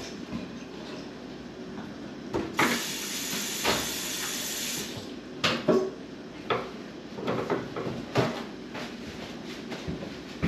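Kitchen tap running into a stainless steel sink as hands are rinsed, for about two seconds a little way in. After it shuts off come a string of short knocks, clicks and paper handling as a paper towel is taken from the roll to dry the hands.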